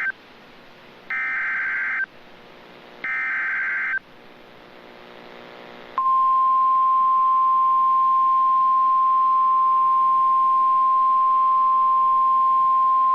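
Emergency Alert System tones opening a severe thunderstorm warning. The end of one SAME digital header burst is followed by two more harsh one-second data screeches about a second apart. About six seconds in, the steady single-pitch 1050 Hz weather-radio warning alarm tone begins and holds.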